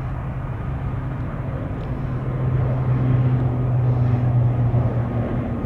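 Jet airliner engines running: a steady low rumble and hum that grows louder about two seconds in, then eases slightly near the end.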